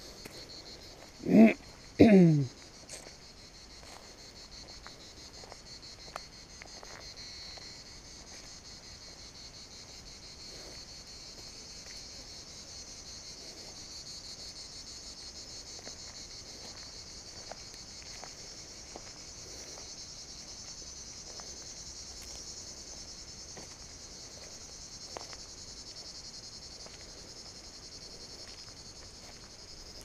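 A steady, high-pitched chorus of insects chirring without a break. About a second and a half in, a short burst of a person's voice, the loudest sound, and a few faint scattered clicks.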